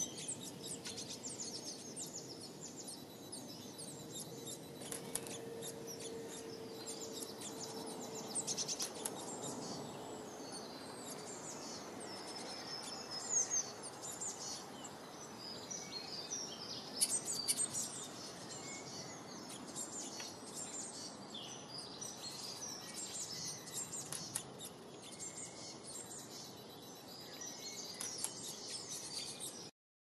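Small songbirds chirping: a steady run of quick, high chirps and calls over a faint background hiss, with a few louder calls in the middle.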